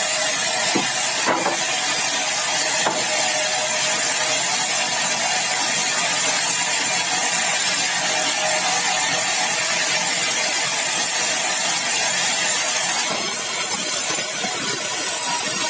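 Sawmill saw cutting through a large, dry, hard bengkirai (balau) log: a steady, hissing run of the blade through the wood, with a few knocks in the first three seconds and a change in tone about thirteen seconds in.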